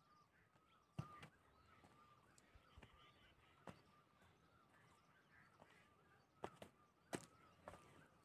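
Near silence in a forest: a faint, continuous warbling call holds at one pitch throughout, with a few sparse soft taps scattered through it.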